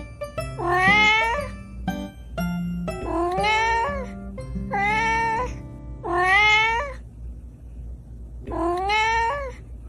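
A domestic cat meowing five times, each meow about a second long and sliding up in pitch at its start, over light background music.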